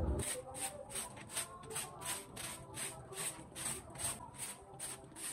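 Long-handled broom sweeping a bare, sandy dirt yard in quick, even swishing strokes, about three a second.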